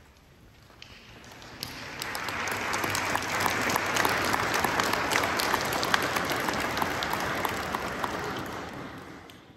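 Audience applauding, swelling over the first two seconds and dying away near the end.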